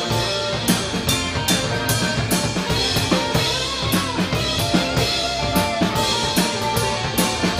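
Live Celtic rock band playing: a drum kit keeping a steady beat with bass drum and snare, under electric bass, acoustic and electric guitars and mandolin.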